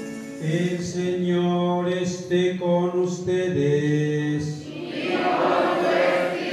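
Choir chanting in long held notes that step from pitch to pitch: the sung acclamation before the Gospel at Mass. About two thirds of the way through the held notes give way to a rougher, noisier stretch of voices.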